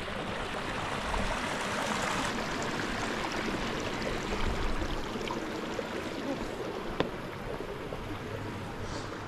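Small moorland stream running over rocks, a steady rush of water, with a single sharp click about seven seconds in.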